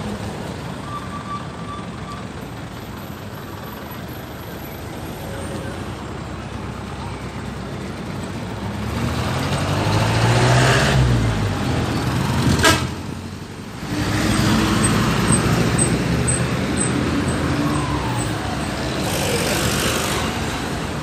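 Road traffic on a city street: motor vehicles running past close by, swelling to the loudest passing about ten to eleven seconds in, with a short sharp sound near thirteen seconds, then steady traffic noise again.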